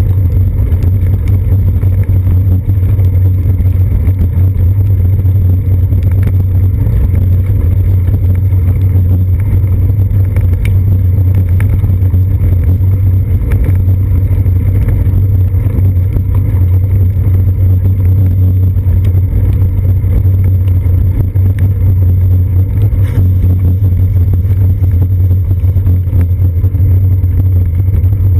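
Steady, loud low rumble picked up by a seat-post-mounted GoPro Hero 2 in its waterproof housing as the bicycle rolls over wet pavement, with a few faint ticks scattered through.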